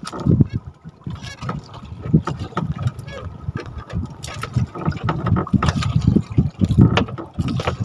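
Sea water sloshing and slapping against a small fishing boat, with scattered sharp knocks and clicks.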